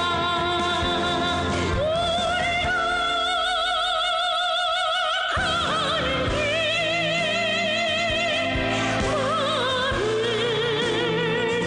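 Music: a song's melody in long, wavering notes over a backing track, the bass dropping out for a couple of seconds in the middle.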